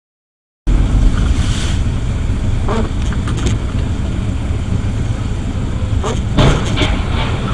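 Silence, then less than a second in a car's interior noise through a dashcam starts abruptly: a loud, steady low rumble of engine and tyres on a wet road, with a few faint ticks.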